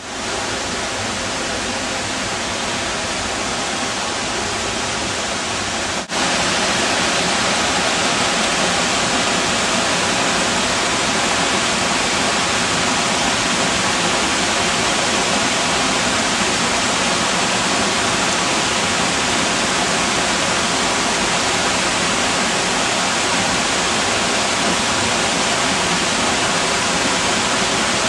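Waterfall pouring, a steady dense rush of falling water; it drops out for an instant about six seconds in and comes back slightly louder.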